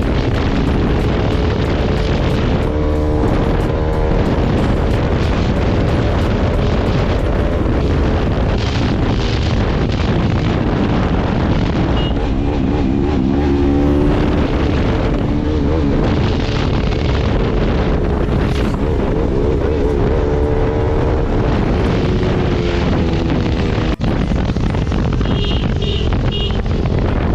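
Motorcycle engine under way, its pitch rising and falling repeatedly as the throttle opens and closes, under a loud rush of wind on the microphone.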